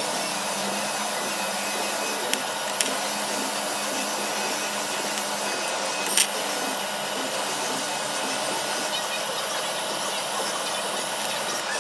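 TIG welding arc hissing steadily during a fusion weld of copper to stainless steel, with a sharp crackle about six seconds in as the arc is struck again.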